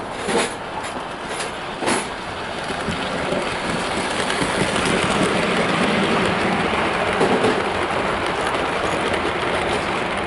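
Bachmann Peppercorn A2 model steam locomotive hauling a rake of model coaches along the track: a steady rumble of wheels on rail, with a few sharp clicks in the first two seconds. The rumble grows louder toward the middle as the train runs past.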